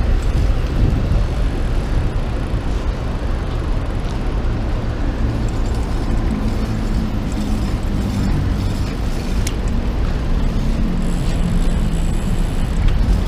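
Steady low rumble of city traffic and riding noise heard from a bicycle moving along a pavement, with a vehicle engine humming through the middle part.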